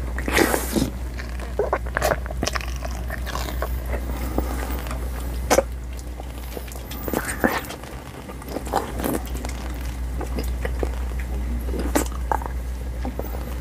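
Open-mouthed chewing of a large mouthful of Xylitol chewing gum, close on a lapel microphone: irregular wet smacks and sticky clicks as the wad is worked between the teeth.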